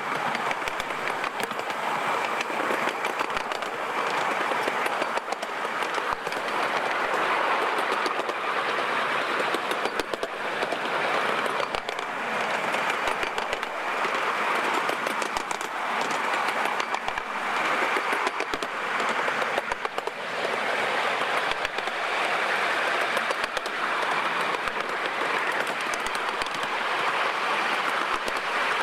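Miniature railway train running along its track, heard from on board: a steady rush of steel wheels on the rails with quick clicks over the rail joints, swelling and easing every couple of seconds.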